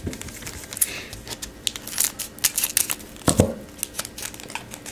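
Foil trading-card pack wrapper being torn open and crinkled, a string of quick crackling rustles, with one louder thump a little past three seconds in.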